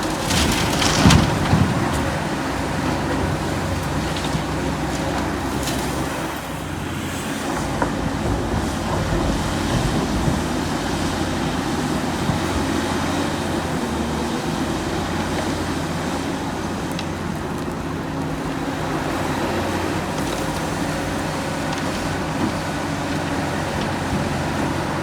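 Heavy machinery engine running steadily, with a loud clattering burst about a second in.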